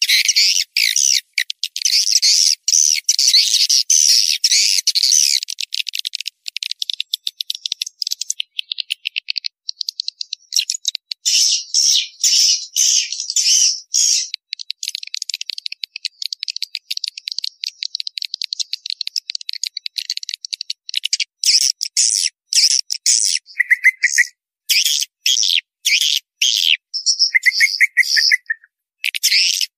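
Edible-nest swiftlet call-lure recording (suara panggil walet): many swiftlets' high twittering chirps and rapid runs of clicks, with nothing in the low end. It is dense, unbroken chatter for the first several seconds, then comes in short bursts with brief gaps and buzzy trills in the last third.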